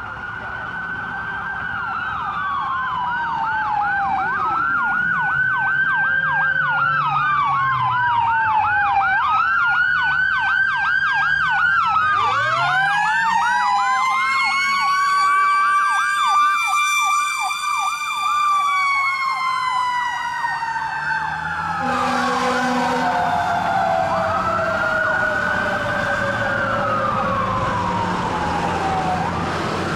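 Fire engine sirens on a 2013 Pierce Velocity pumper running to a call. An electronic siren sweeps in a fast yelp and a slower wail throughout. About twelve seconds in, a Federal Q2B mechanical siren winds up to a high pitch, holds, then slowly winds down, with a short air-horn blast about two-thirds of the way through.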